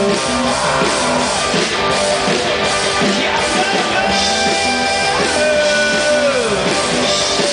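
Live rock band playing an instrumental passage between vocal lines, with a held note that slides down in pitch near the end.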